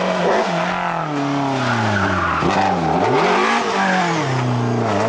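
BMW M3 Group A rally car's four-cylinder engine at high revs through a corner. The revs fall and climb several times with gear changes, with a quick double dip near the middle.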